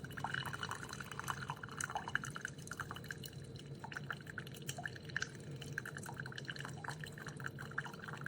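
TWOMEOW single-serve K-Cup coffee maker brewing, hot tea dripping and trickling from the spout into a cup in quick, irregular drops, over a steady low hum.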